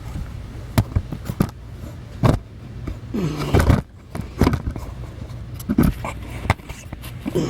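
Scattered sharp knocks and clinks of hand tools being handled and set against metal, about six in all, over a steady low hum.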